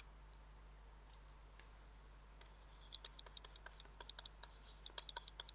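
Near silence over a low steady electrical hum, then from about three seconds in a run of faint, quick clicks and taps from handwriting being entered on the computer.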